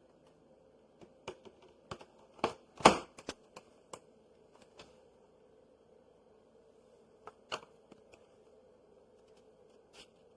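Scattered clicks and knocks of hard plastic parts being handled, a quick cluster a second or two in with the loudest knock about three seconds in, then a few single clicks later. The vacuum motor is not running.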